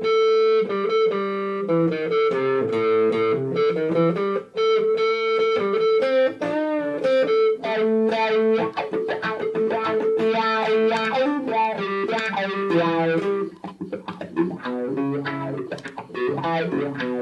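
Electric guitar playing a melodic line of held notes and two-note harmonies through a Donner Viper Mini wah/volume pedal, turning to quicker, choppier notes near the end.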